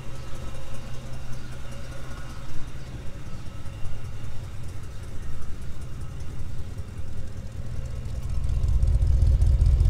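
1961 Chevrolet Impala's 348 cubic-inch V8 idling, whisper smooth and steady, growing louder near the end.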